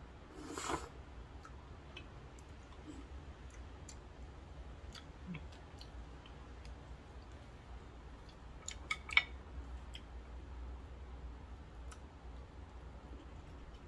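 A short slurp of noodles about half a second in, then small scattered clicks of wooden chopsticks, with a few sharper clicks close together about nine seconds in.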